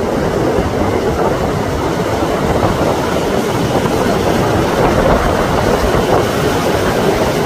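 Heavy storm surf breaking on the shore: a steady, loud rush of waves.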